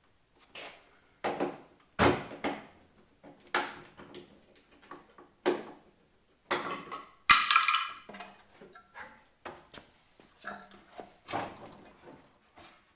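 Irregular metallic clanks, knocks and rattles from an Oldsmobile Cutlass Supreme's front bumper and front-end sheet metal as they are worked loose by hand and with tools. A loud bright metal clatter comes about seven seconds in.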